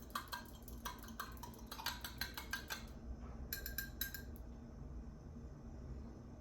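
Dishes and cutlery clinking: a quick run of light ringing clinks for about three seconds, then a shorter burst of clinks a moment later.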